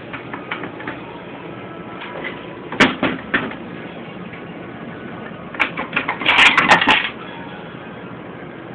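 Metal internal parts of a Ford A4LD automatic transmission knocking and clattering as they are handled and pulled apart by hand: a few sharp knocks about three seconds in, then a longer burst of clatter near the six-to-seven-second mark.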